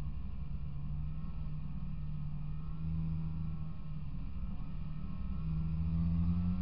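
Polaris Indy 340 snowmobile's two-stroke engine running steadily under way, its pitch rising a little about three seconds in and again, getting louder, near the end as the sled speeds up.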